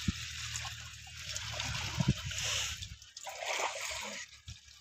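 Water splashing and sloshing as bathers move about in a shallow plastic-lined pool, with two sharp thumps about two seconds apart.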